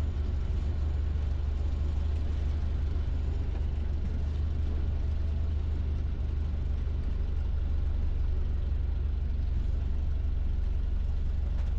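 Small plane's piston engine running steadily at low power after landing, a constant low drone heard inside the cabin.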